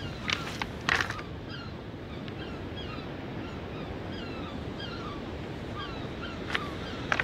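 Footsteps crunching on beach pebbles, twice near the start and again near the end. Between them small birds chirp over and over above a steady rush of surf.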